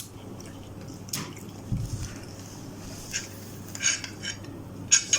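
Eating utensils clinking and scraping against a bowl of instant noodles, several short separate clinks, the loudest near the end.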